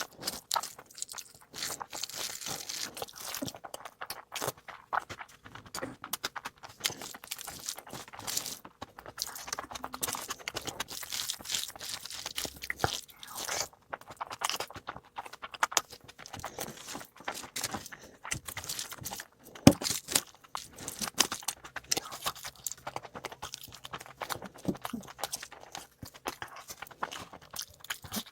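A person chewing and crunching food close to the microphone, ASMR-style, with a continuous run of irregular crunches and mouth clicks. One sharper, louder crack comes about two-thirds of the way through.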